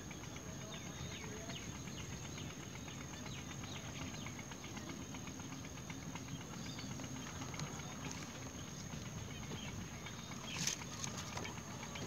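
Faint outdoor ambience: a steady high-pitched whine with soft scattered ticking over a low rumble, and one brief louder noise near the end.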